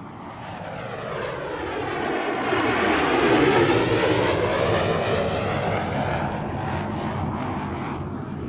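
An airplane flying overhead. It grows louder to a peak about three seconds in, then slowly fades, with the swirling, shifting tone of a plane passing over.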